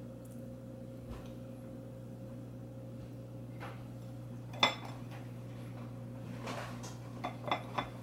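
Utensil clinking and scraping against dishware as grated carrot is scraped off a plate into a mixing bowl: a few soft taps, one sharp clink about halfway through, and several quick clinks near the end.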